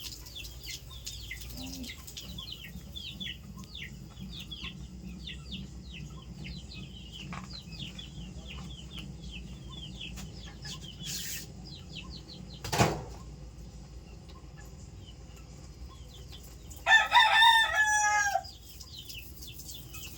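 A rooster crows once near the end, loudly, over a steady background of rapid high chirping. There is a single sharp knock about two-thirds of the way through.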